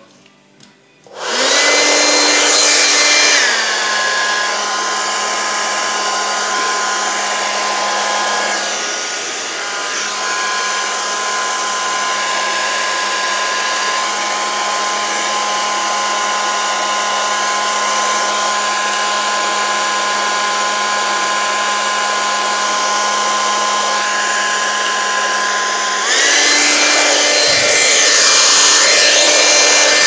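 Brand-new hand-held hair dryer switched on about a second in, its fan blowing with a steady motor whine. A couple of seconds later the whine steps down in pitch and the sound eases slightly, and near the end it steps back up to the higher, louder setting.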